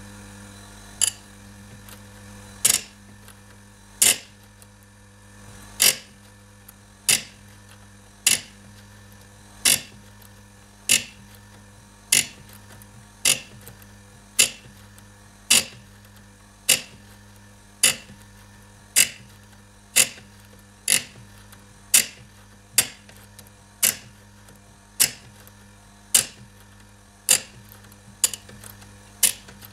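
Oregon bench chainsaw-chain grinder's electric motor running with a steady hum, while the grinding wheel is pulled down onto each depth gauge of the chain in turn. Each pull gives a short, sharp grinding touch, about one a second, as that raker is ground down to the same level as the rest.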